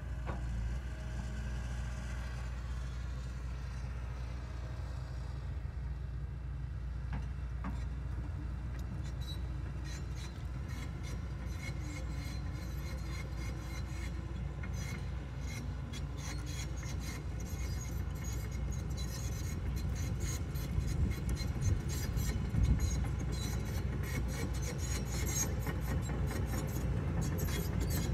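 Hitachi excavator's diesel engine running steadily under load while the bucket and thumb drag dirt and branches across the ground, with scraping and crackling that start about ten seconds in and grow louder toward the end.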